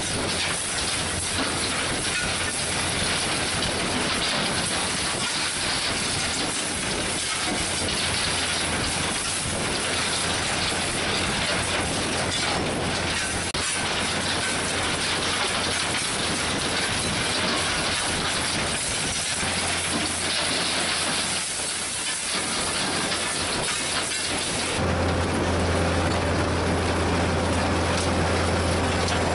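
Gipokombi RC 130 FDR mobile impact crusher running under load, a steady dense clatter of crushed rubble on its conveyors over a constant machinery hum. About 25 s in, the low hum comes up stronger and steadier.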